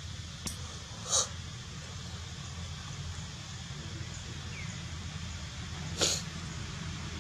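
Two short, sharp animal calls from long-tailed macaques, about five seconds apart, over a steady low hum.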